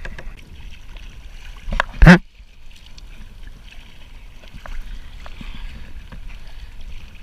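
Water lapping and splashing around a plastic sit-on-top kayak as it is paddled at sea, with small knocks of the paddles. A single short, loud burst about two seconds in.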